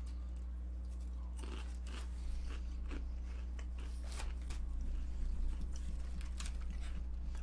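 Mouth crunching and chewing hickory sticks, thin crisp potato sticks, in many short irregular crunches that come thicker from about two seconds in. A steady low electrical hum runs underneath.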